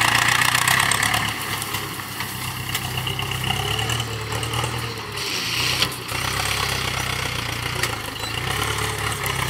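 Diesel engines of a Ford 6610 tractor grab loader and a sugarcane truck running steadily at low revs, as the truck moves off.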